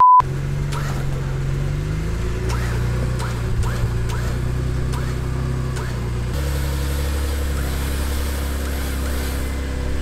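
Off-road truck's engine running at low revs while rock crawling, a steady low drone that shifts abruptly to a deeper tone about six seconds in. A short high beep at the very start.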